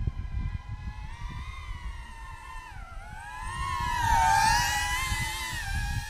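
DJI Avata ducted-propeller FPV drone flying, its propellers giving a high buzzing whine that changes pitch as the throttle changes. The pitch dips about three seconds in, then the sound swells to its loudest about four seconds in before settling.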